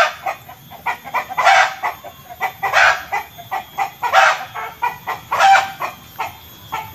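Chicken cackling 'petok-petok': runs of quick short clucks, each rising into a louder drawn-out squawk, repeating about every second and a half.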